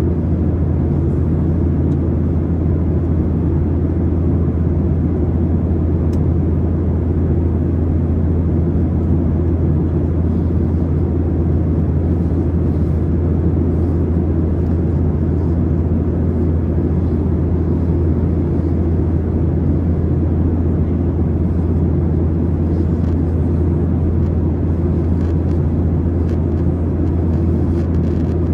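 Steady low drone of an airplane that holds level and pitch throughout, without rising or falling.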